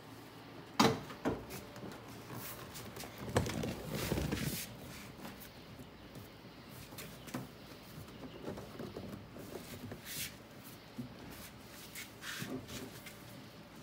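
Scattered knocks, taps and rubbing as a C3 Corvette's leatherette door card is handled and pressed into place against the door. A sharp knock comes about a second in, and a cluster of bumps follows around three to four seconds in.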